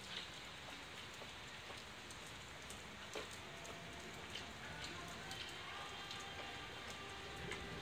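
Light rain falling steadily, an even patter with many small scattered drop ticks. A few faint steady tones come in over the second half.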